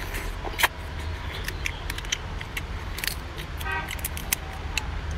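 Eating boiled lobster close to the microphone: chewing, with a few sharp clicks and cracks as the shell is pulled apart, over a steady low rumble.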